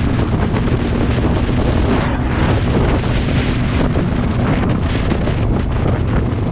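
Heavy wind rushing over the microphone of a moving motorcycle, with a steady low engine hum underneath.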